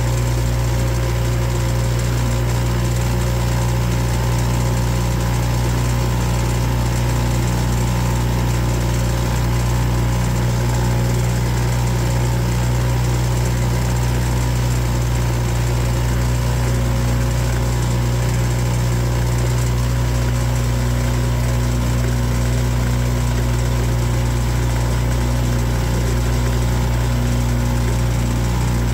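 A boat's engine running steadily under way, holding one constant speed with a deep, even drone.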